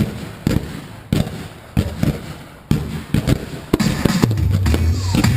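Aerial fireworks going off in a series of sharp booms about every half second to a second, some with crackle after them. Music comes in under them near the end.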